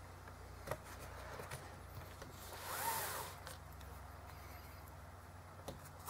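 A spiral-bound paper notepad sliding across a desktop: a brief rubbing scrape about halfway through, which is the loudest sound. A few light clicks come from a fountain pen being picked up and handled, over a steady low hum.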